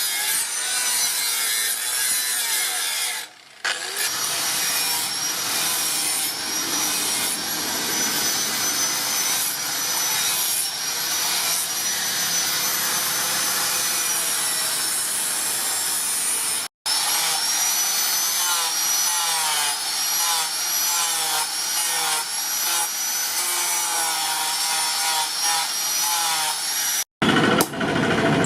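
Power tools working steel: grinding and drilling, a continuous harsh metal-cutting noise with a high, wavering motor whine. It breaks off suddenly three times, and after the last break, near the end, a lower, rumbling sound follows.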